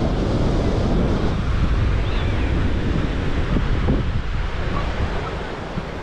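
Ocean surf breaking on the beach, with wind buffeting the microphone in a low rumble; it eases a little near the end.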